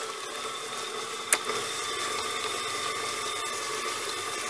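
Electric mixer running steadily, its beaters creaming butter, sugar and eggs in a metal bowl, with a single sharp click a little over a second in.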